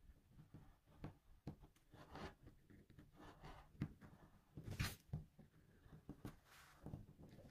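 Small linocut gouge cutting fine lines into a lino block: faint, irregular scratchy strokes, with one sharper click about five seconds in.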